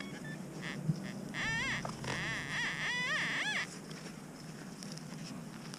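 Metal detector giving a target signal: about four or five short pitched warbles that each rise and fall, over roughly two seconds in the middle, as the coil is swept over a buried metal object.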